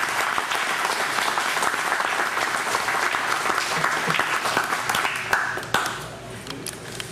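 Audience applauding, many people clapping at once; the applause dies away about six seconds in.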